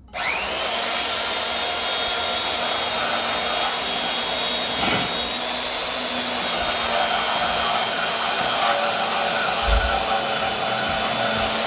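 Porter-Cable Porta-Band portable band saw switched on, its motor whine rising quickly to speed, then running steadily as the blade cuts down through a square metal tube.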